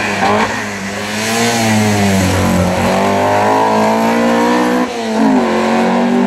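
Alfa Romeo 33 race car's flat-four boxer engine at high revs. The note drops as the car slows into a tight bend, then climbs again as it accelerates out, with a brief break in the note about five seconds in before it rises once more.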